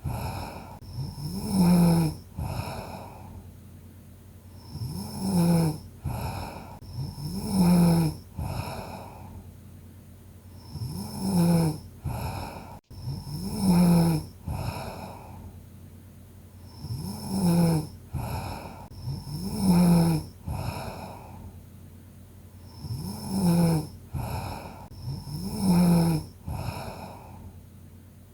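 A sleeping person snoring in a steady rhythm: snores come in pairs about two seconds apart, each pair recurring roughly every six seconds.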